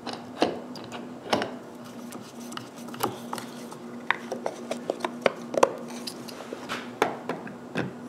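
Irregular clicks and light knocks of small parts being handled and fitted into a plywood case: a stepper motor with a plastic pulley and belt, and a plexiglas cover. A faint steady hum runs underneath.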